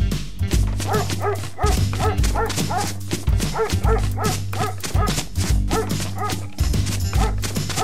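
Short dog barks repeated in quick succession, about two to three a second, over background music with a steady bass line.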